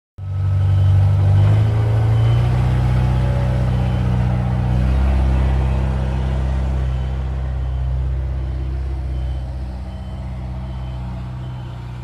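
Heavy machine's engine running loud and steady, its pitch shifting about one and a half seconds in and again about five seconds in, with a faint reversing alarm beeping repeatedly.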